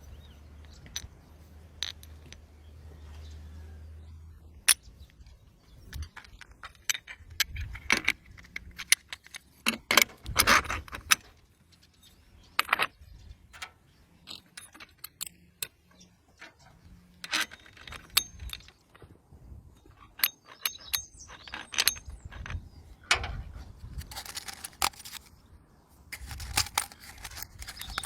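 Small metal parts and hand tools clinking and rattling in irregular bursts, with scattered sharp clicks and a few scrapes.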